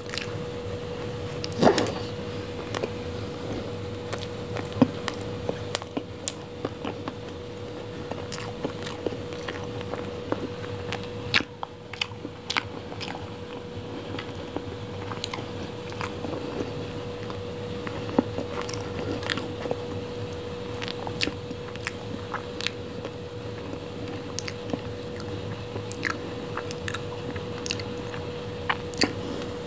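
Close-miked chewing of soft chocolate-glazed doughnut and cake, with many sharp wet mouth clicks and smacks, the loudest about two seconds in.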